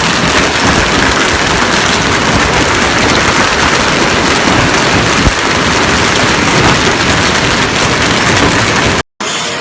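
Hailstorm: hail pounding down onto surfaces in a dense, steady rush of impacts, with one sharper knock about five seconds in. It cuts off abruptly near the end.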